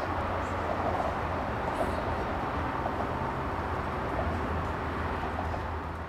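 Steady outdoor background noise: a constant low hum under a dense hiss, with many faint short blips scattered through it.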